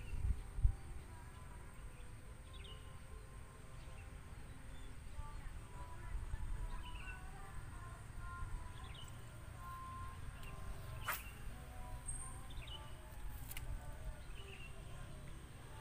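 Small birds chirping in short, repeated calls every second or two over a steady low rumble, with one sharp click about eleven seconds in.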